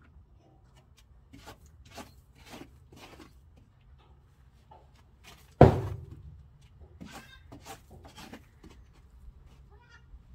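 Scattered soft knocks and shuffles, with one loud thump a little past halfway through that dies away over about half a second.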